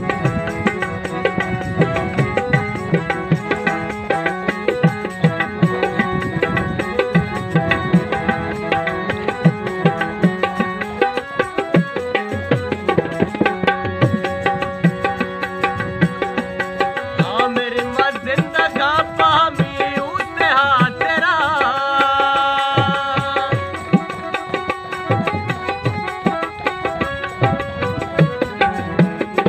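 Harmonium playing a ghazal melody over a held drone, with a hand drum keeping the rhythm. The drum strokes thin out in the middle and return near the end.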